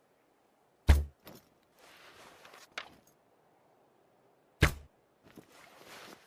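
Hunting bow and arrow sound effect: two sharp thwacks with a deep low thud, about four seconds apart, each followed by a few light clicks and a second of soft rustling noise.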